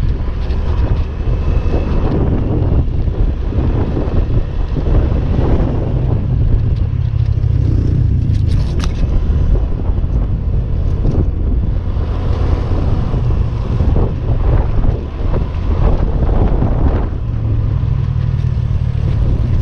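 Small Honda automatic scooter running along a road, its engine and road noise under a steady, heavy wind rumble on the microphone from the ride.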